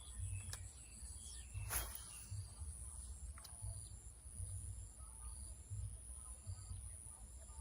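Outdoor ambience dominated by a steady, high-pitched insect drone, over low rumbling and a few sharp clicks, the loudest about two seconds in.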